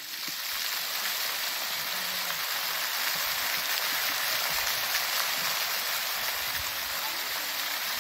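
Fountain jets splashing steadily into an ornamental pool: an even rushing hiss of falling water that swells up at the start and then holds level.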